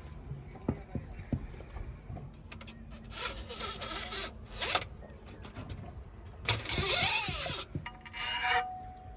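JCB 3DX backhoe loader working with its engine running low. Several loud bursts of hissing, scraping noise cut in and out, the longest and loudest about two-thirds through with a creaking squeal in it. Short knocks are scattered between them.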